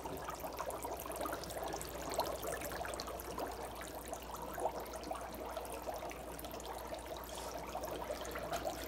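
Dry ice bubbling in a sink of water: a steady, busy stream of small pops and burbles as the frozen carbon dioxide turns to gas.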